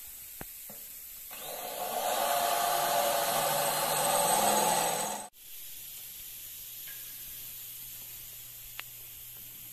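Cordless drill running under load, its bit boring through a metal bumper strip, for about four seconds before it cuts off suddenly. After that, a quieter steady low hum.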